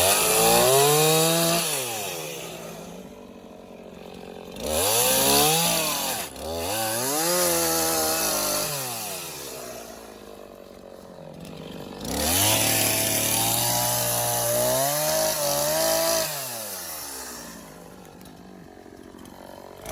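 Echo chainsaw bucking a log into firewood rounds: the engine revs up to full throttle for each cut, holds there through the wood, then drops back to idle between cuts. There are four such bursts, the longest about four seconds near the middle.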